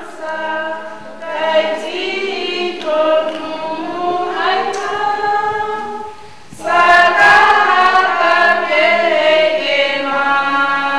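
Choir singing in long, held phrases. The sound dips briefly a little past halfway, then comes back louder with a new phrase.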